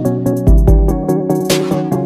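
Background electronic music with a steady beat and a deep bass hit about half a second in.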